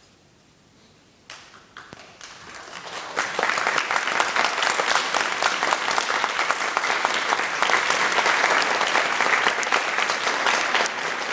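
Audience applause: a few scattered claps begin about a second in, swelling into full, steady clapping from many hands by about three seconds in.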